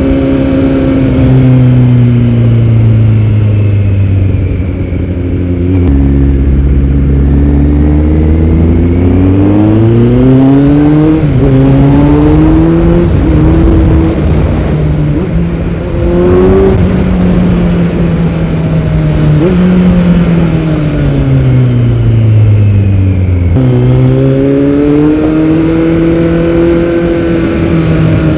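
Kawasaki Z900's inline-four engine running through a Yoshimura R77 full-system exhaust under way. Its pitch climbs and falls with the throttle, with several sudden jumps in pitch as at gear changes, and eases off for a long fall about two-thirds of the way in before climbing again.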